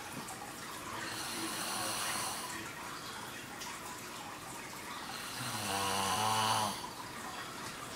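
A sleeping person snoring: a soft, airy breath about a second in, then one loud pitched snore about five and a half seconds in, lasting a little over a second.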